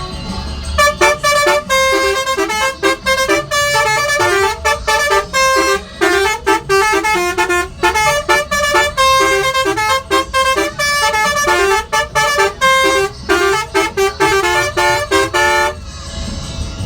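Basuri-type telolet musical bus horn playing a quick tune of short honked notes. It starts about a second in and cuts off abruptly near the end, over a low rumble.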